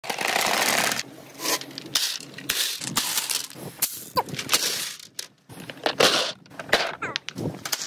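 Billiard balls rolling down a plastic rain-gutter marble run, with many sharp knocks and clacks between stretches of rushing noise.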